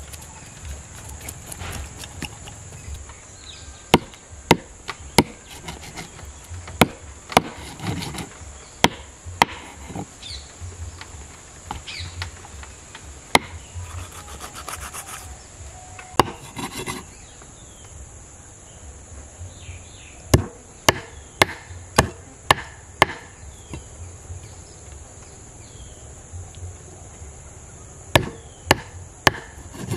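A knife scraping scales off a whole fish on a wooden chopping block: scratchy strokes and sharp knocks of the blade against the wood, coming in irregular runs. A steady high insect buzz sits underneath.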